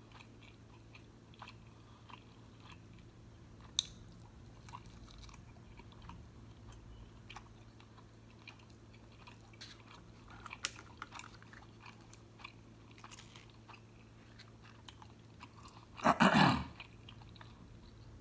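Close-miked chewing of a steak quesadilla dipped in spicy guacamole sauce: faint, with scattered small clicks and crunches of the crisp tortilla. A brief loud burst of voice comes near the end.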